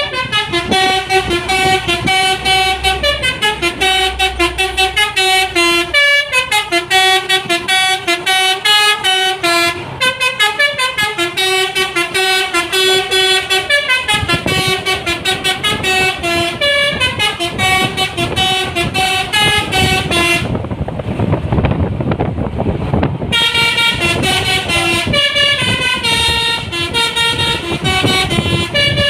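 A Basuri telolet bus horn playing a fast repeating melody of short, quickly changing notes. About two-thirds of the way through the tune breaks off for a few seconds, leaving only engine and road rumble, then starts again.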